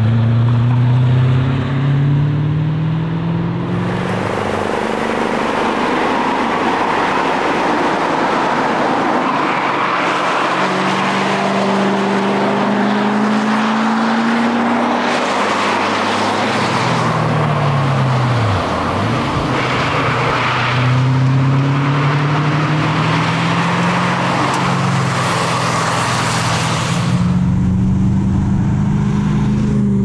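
BMW 540i (E34) 4.0-litre V8 engine pulling hard, the revs climbing again and again through the gears with drops between. About two-thirds of the way through the revs fall sharply and climb back, over a steady rush of noise.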